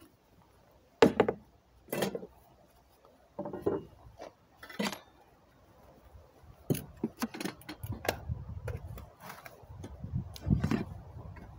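Hard plastic case being opened with a few sharp clacks of its lid, then a quick run of metal clinks and knocks as camp-stove parts and propane cylinders are handled and lifted out.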